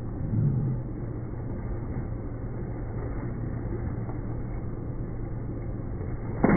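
Steady low hum of an inflatable water park's air blower running. Right at the end, a sharp thump and a splash as a boy jumps onto a plastic sled floating in shallow water.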